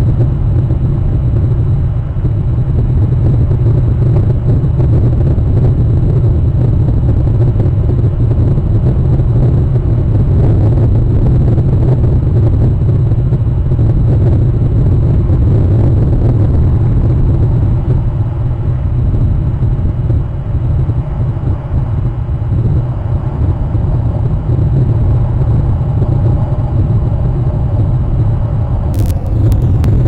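Steady low rumble with hiss from an outdoor wildlife webcam's microphone, with no distinct bird calls standing out. There is a brief click near the end.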